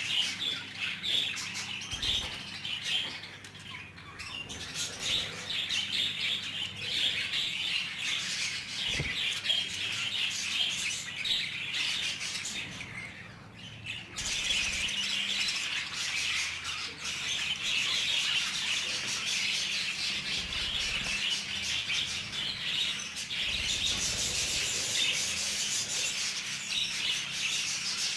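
A flock of budgerigars chattering and chirping continuously, with a brief lull about halfway through.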